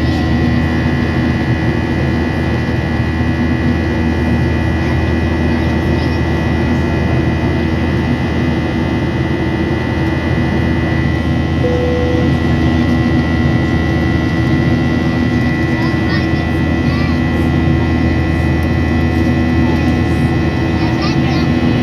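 Steady cabin noise in a Boeing 737-800 climbing after takeoff: the low drone of its CFM56 jet engines and the hum of the cabin air, with a few steady tones running through it.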